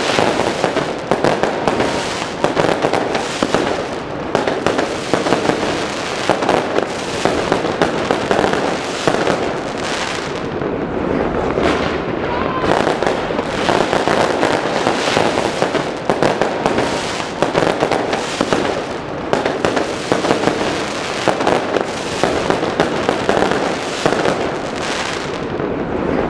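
Fireworks going off in a dense, continuous barrage of overlapping bangs and crackles, with frequent louder reports standing out.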